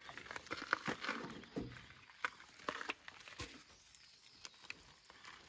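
A nylon ratchet tie-down strap being handled: the webbing pulled through and its metal ratchet buckle and hooks clicking and rattling in irregular short clicks, busiest in the first three seconds and sparser after.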